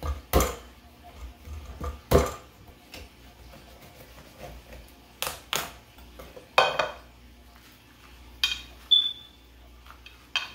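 A knife chopping through a pumpkin and knocking down onto a wooden cutting board, twice, then a metal spoon scraping out the seeds and clinking against a ceramic bowl, with one short ringing clink near the end.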